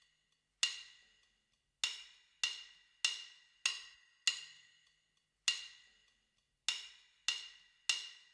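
Sparse percussion at the start of a song: one sharp struck hit with a short, high ring, repeated on a steady beat about every 0.6 s with a few beats left out, ten strikes in all.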